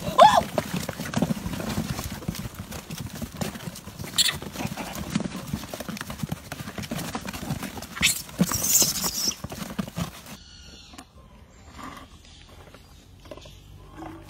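A troop of macaques scrambling over a cardboard box of bananas: dense rustling, scuffling and knocking of cardboard, with a few brief shrill calls. About ten seconds in it drops to a much quieter stretch of sparse ticks.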